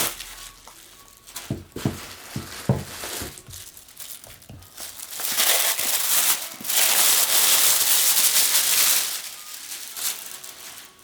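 Packaging being crinkled and torn off tarot deck boxes, with a few light knocks of the boxes being handled. The crinkling grows loud about halfway through and eases off near the end.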